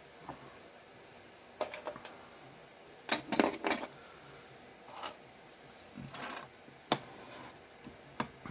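Irregular metallic clinks and knocks as a spin indexer and small metal parts are handled and moved on a wooden workbench. The loudest is a quick cluster of clinks about three seconds in.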